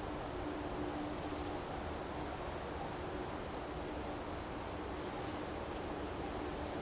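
Outdoor background: a steady hiss with a faint low hum, and scattered short high-pitched chirps from birds or insects.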